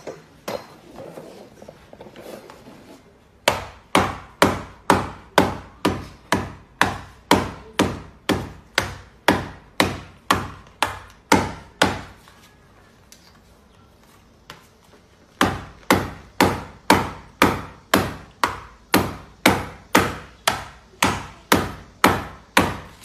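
Repeated sharp knocks of a rifle scope being jolted in a shockproof test, about two a second, in two long runs with a pause of about three seconds between them.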